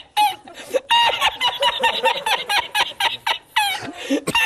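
A man's high-pitched cackling laughter in quick short bursts, several a second, almost like a hen clucking.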